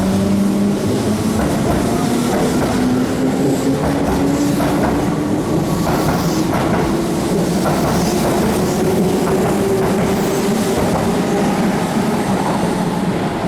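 Keihan electric train pulling away, its traction motor whine rising slowly in pitch as it gathers speed, over the rumble of the wheels and clacks from the rail joints.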